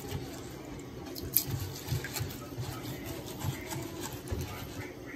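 Rice being washed by hand in water in a plastic container: fingers swishing and rubbing the grains, soft watery sloshing with a few light clicks and knocks against the container.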